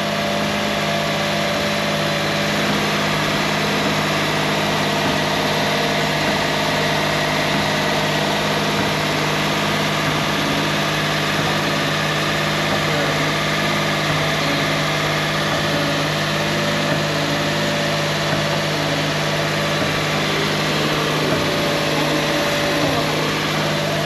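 Suzuki Kei's engine running steadily in gear, turning the bare front hub and brake disc with the wheel off, heard close to the hub as a continuous mechanical drone. The car is being run for a knocking that shows under braking load.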